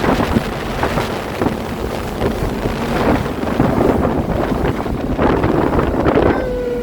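Passenger ferry's engine humming steadily, heavy wind buffeting the microphone in gusts.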